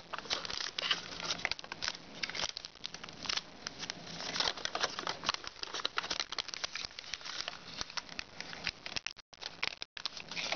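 Foil origami paper crinkling and crackling as it is pleated and creased by hand, a dense run of irregular small crackles, with two brief silent gaps about nine and ten seconds in.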